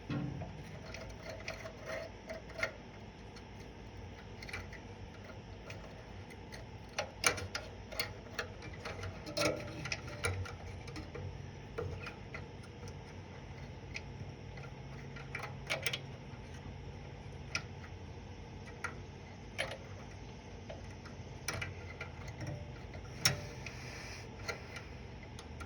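Irregular clicks and metal clinks of hand tools as parts are hooked up on a riding-mower engine, with a few louder knocks among them.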